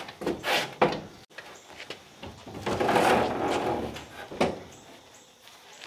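Bench seat being worked into a 1958 Chevy Apache's cab: a few sharp knocks and bumps in the first second, then a longer stretch of rubbing and scraping, and another bump a little later.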